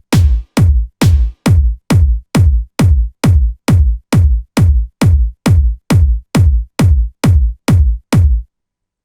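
Electronic dance track down to a lone drum-machine kick drum, about two hard thuds a second, each dropping in pitch, with silence between them. The beat stops abruptly near the end.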